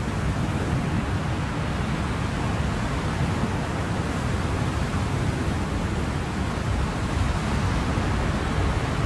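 Ocean surf: a steady, even rushing of waves, heaviest in the low end, with no single wave break standing out and a slight swell in loudness near the end.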